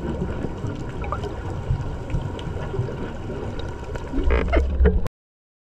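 Underwater sound picked up by a diver's camera: a steady muffled low rumble with faint scattered clicks. About four seconds in comes a louder burst of bubbling, like a scuba diver's exhaled breath, and then the sound cuts off abruptly.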